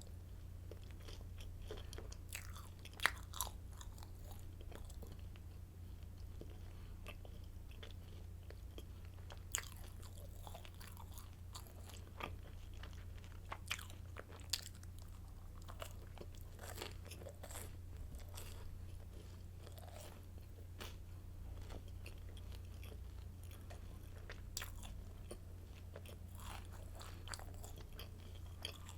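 Crunchy garlic stick baguette being bitten and chewed close to the microphone, with sharp crackles at irregular intervals, the loudest about 3, 9 and 14 seconds in, over a steady low hum.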